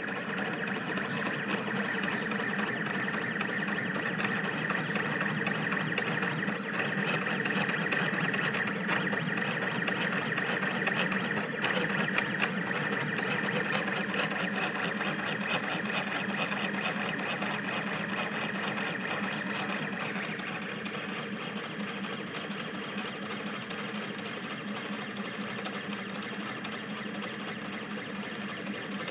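Rostock delta 3D printer's stepper motors running through fast print moves: a steady mix of whining tones that shift in pitch as the effector changes direction. It eases off slightly about two-thirds of the way through.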